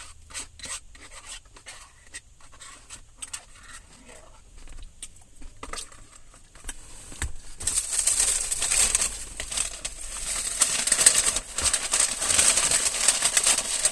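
Paper fast-food wrapper and bag being handled: a few scattered light clicks and taps at first, then continuous rustling and crinkling from about eight seconds in, much louder.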